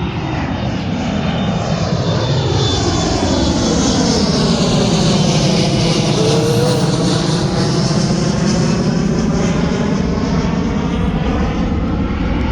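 Large jet airliner passing low overhead, its engines a loud, steady rush that builds to a peak in the middle and sweeps in pitch as the plane passes over.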